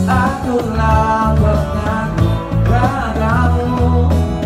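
A live band playing a song: a singer's voice over bass and guitar, the sung phrases coming in short lines with pauses between.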